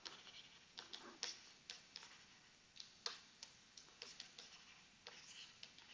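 Faint, irregular light taps and scratches of a stylus on a tablet screen during handwriting.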